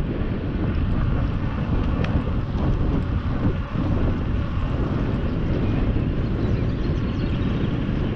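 Wind rumbling on the microphone over steady outdoor background noise.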